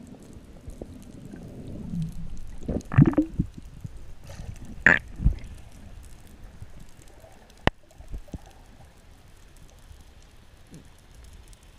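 Underwater water noise picked up by a camera in its housing: a steady low rumble with loud gurgles about three and five seconds in, and a single sharp click partway through.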